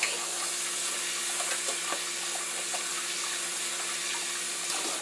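Kitchen faucet running steadily into the sink, an even rushing hiss that cuts off abruptly at the end.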